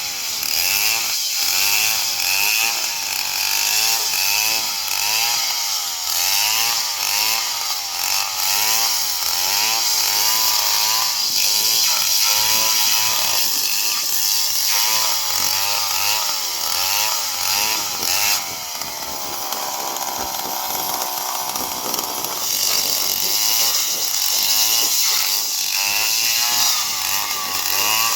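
Stihl chainsaw cutting into a palm trunk, its engine speed rising and falling over and over, about once a second, as the chain takes and sheds load. Past the middle it settles for a few seconds into a steadier, slowly falling pitch and is a little quieter, then the swings resume.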